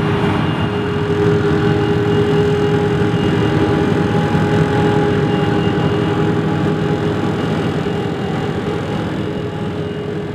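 Krone Big X 850 self-propelled forage harvester running under load as it chops maize: a steady machine sound with several held tones. It fades out near the end.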